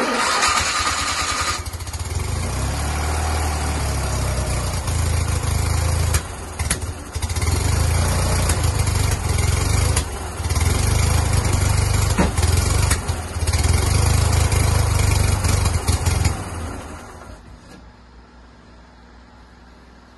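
A Fiat 500R's small air-cooled two-cylinder engine (the Fiat 126 unit) is cranked and catches, then runs rough for about fifteen seconds, its note dipping unevenly with a few sharp pops. About seventeen seconds in it is switched off and dies away. The owner suspects a small fuel leak drawing in air, leaving it starving or running too rich.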